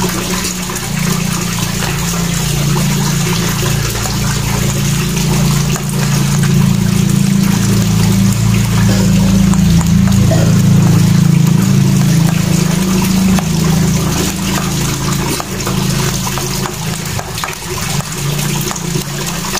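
Running water over a loud, steady low hum that is strongest through the middle.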